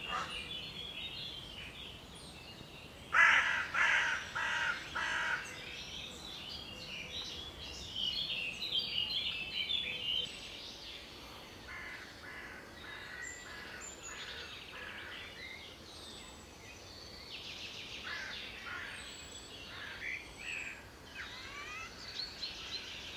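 Woodland birds calling: four loud, harsh calls in quick succession about three seconds in, then scattered chirps and short songbird phrases, over a faint steady hiss.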